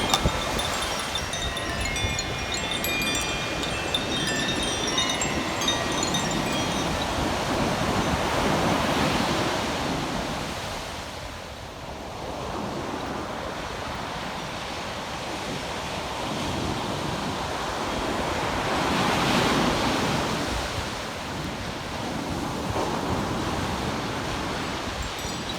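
Koshi chime ringing, its shimmering notes fading out over the first several seconds. Waves break and wash on the beach, swelling twice, with wind on the microphone.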